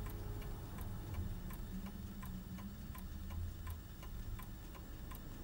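Steady clock-like ticking, about three ticks a second in an alternating tick-tock, over a low hum.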